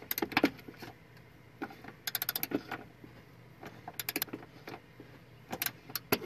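Several short runs of rapid light clicks, the clearest about two seconds in and again near four and six seconds, with scattered single taps between.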